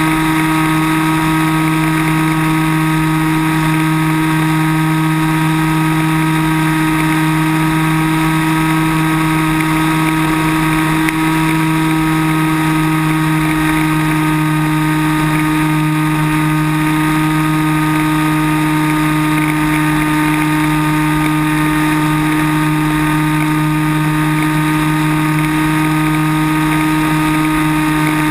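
Multiplex Cularis motor glider's electric motor and propeller running at a steady, even pitch, heard close up from a camera mounted on the plane.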